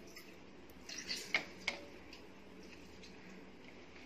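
Quiet room tone with three or four light clicks and ticks between about one and two seconds in, from a hand squeezing half a lemon over a steel pressure cooker.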